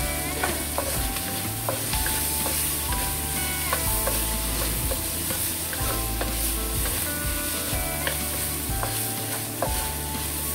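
Chopped chicken, garlic and shallots sizzling in hot oil in a wok while a spatula stirs them, scraping and tapping against the pan.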